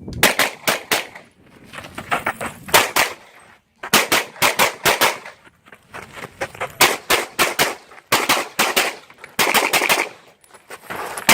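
9mm pistol-caliber carbine firing fast strings of shots, several rapid shots at a time with short pauses between the strings.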